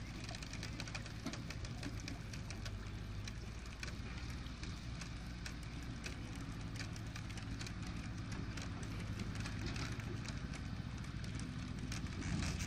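A small engine running steadily with a low hum, with many faint clicks and ticks over it.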